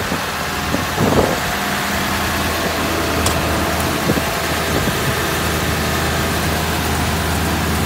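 Elliott L55R sign truck's engine idling steadily, with a short knock about a second in.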